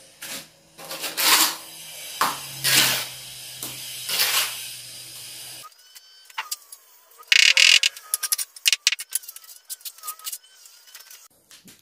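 Hammer knocking on bricks set in clay, a handful of strokes, then scraping and a quick run of small clicks and rattles as the clay joints between the bricks are worked.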